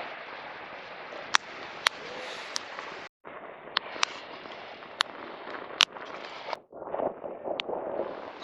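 Wood campfire crackling: a steady hiss with scattered sharp pops and snaps, a few of them loud.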